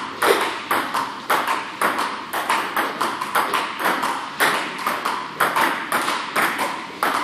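Table-tennis ball rallying in a forehand drill: sharp clicks of the ball off the bats and bouncing on the Stiga table, in a steady quick rhythm of paired strikes a little more than half a second apart.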